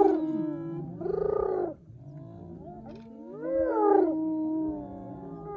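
A group of hyenas calling over one another, with gliding cries that rise and fall in pitch. About a second in there is a short burst of rapid chattering, and a fresh set of cries comes around the three-second mark.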